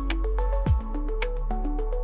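Background electronic music: a short-note melody over a sustained bass with a steady kick-drum beat.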